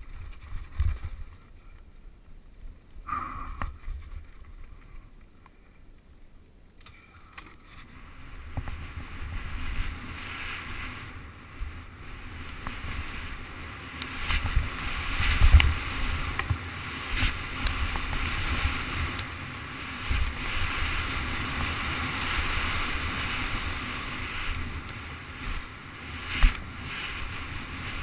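A mountain bike running down a dirt trail: wind rushing over a bike-mounted camera's microphone, tyre rumble, and the knocks and rattles of the bike over bumps. It is quieter for the first several seconds and picks up from about eight seconds in, with a hard knock just past the middle and another near the end.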